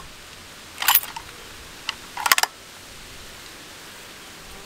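Short metallic clicks and clacks of a bolt-action rifle being handled, the bolt worked: a quick cluster about a second in, a single faint click, then a tighter run of clacks just past two seconds.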